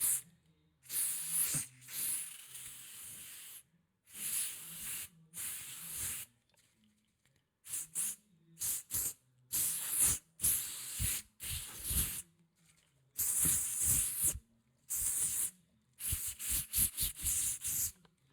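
Aerosol spray paint can spraying in repeated hissing bursts: some long sprays of a second or two, others short puffs, with a quick run of short bursts near the end.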